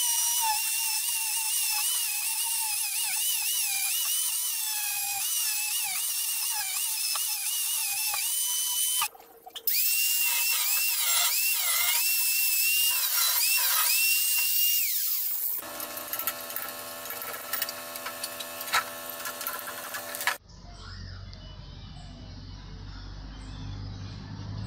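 Electric power tools with wire brushes scouring rust off cast-iron Singer sewing machine parts: a high whine that wavers as the brush bears on the metal, broken off briefly about nine seconds in. After about fifteen seconds it gives way to a steadier, lower buzzing motor, and near the end to a quieter low hum.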